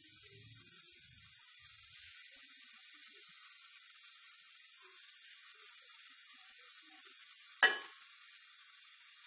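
Grated carrot and onion mixture sizzling steadily in a stainless steel pan as cooked rice is tipped in, with one sharp clink about three quarters of the way through.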